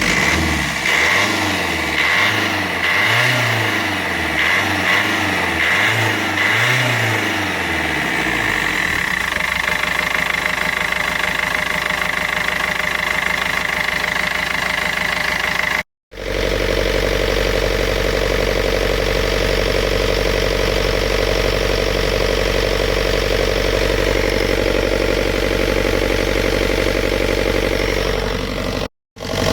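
65 hp Yanmar marine diesel engine in a boat, revved up and down a few times and then settling to a steady run. It cuts off abruptly about halfway and resumes running steadily at a different pitch.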